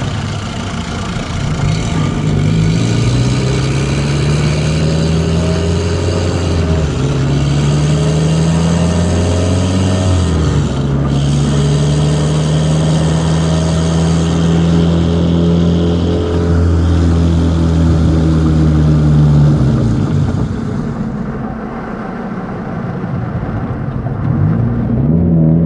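Car engine and aftermarket exhaust with a cutout, accelerating through the gears. The engine pitch climbs and drops at each shift three times in the first ten seconds or so, then holds steady at cruise. It eases off about twenty seconds in and picks up again near the end.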